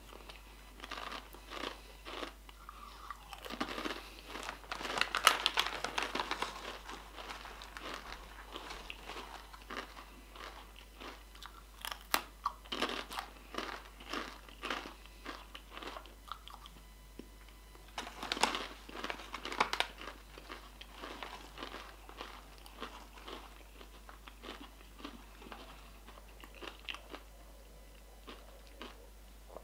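A person chewing a crunchy rolled corn tortilla chip: crunching in bouts, heaviest about five, thirteen and nineteen seconds in, then sparser near the end.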